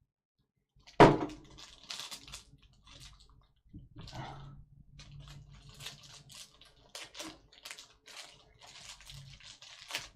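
Trading-card box and packaging being handled and opened. A sharp knock comes about a second in, followed by irregular crinkling and rustling of wrapper and cardboard.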